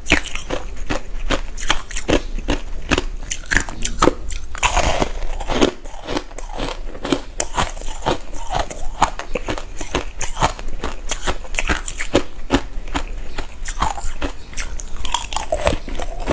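Crushed ice being chewed and crunched in the mouth: a continuous run of rapid, sharp crunches and crackles.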